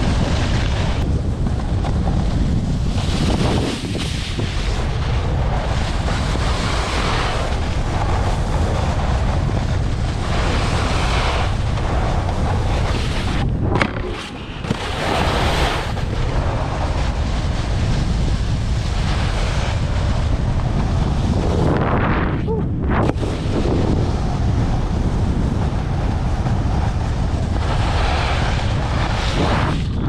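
Heavy wind buffeting an action camera's microphone as a snowboarder rides downhill, mixed with the hiss of the board sliding over the snow. It runs unbroken and gusty, easing briefly about halfway through.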